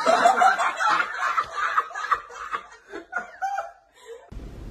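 A man laughing hard: a run of chuckles, loudest at first, that breaks into shorter bursts and stops shortly before the end.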